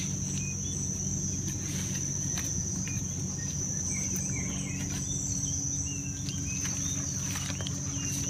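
Steady, high-pitched drone of insects, with a few short bird chirps about halfway through over a low steady hum.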